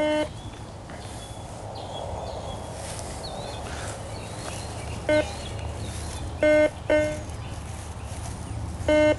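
Garrett GTI 2500 metal detector sounding short, low, buzzy beeps as its coil sweeps the ground, about five in all, spread unevenly: responses to junk targets, which the hunter reads as a lot of trash.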